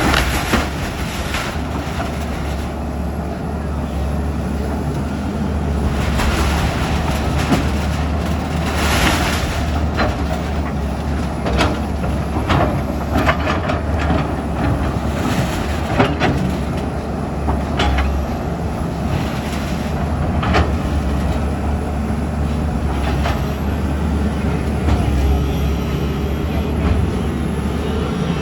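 Heavy demolition machinery running: a steady low engine drone with scattered knocks and bursts of clatter.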